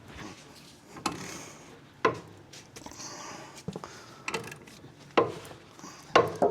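Ball joint press being tightened by hand as a new ball joint is pressed into a control arm: sharp metallic knocks and clicks at irregular intervals, about one a second.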